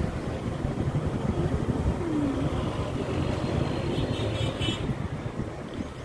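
Motor-vehicle traffic: a steady low engine and road rumble, with a few brief high sounds about four seconds in.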